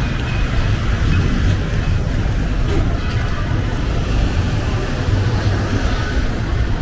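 City street traffic noise: vehicle engines running, with a steady low rumble.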